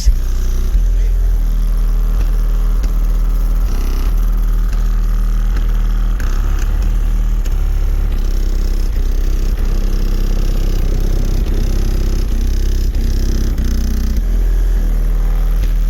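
Competition car-audio subwoofer system playing heavy bass at very high volume. The deep low end is held steady and loud, with the tones above it shifting every second or so.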